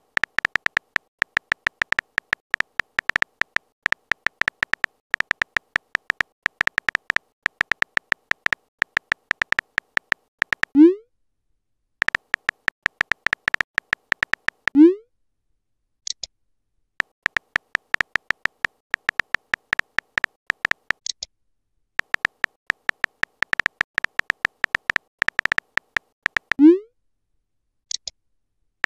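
Texting-story app sound effects: a fast, even run of synthetic key-tap clicks as messages are typed, stopping each time for a short rising 'bloop' as a message is sent, three times. A few brief high blips come in between.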